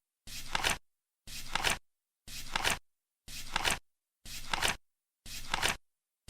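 Flip clock card flipping once a second: a short flutter ending in a sharp click, with dead silence between flips.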